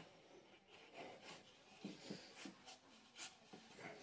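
Faint wood-on-wood rubbing and light scattered ticks from pine pieces clamped in a vise as a hand pushes on them and works them together.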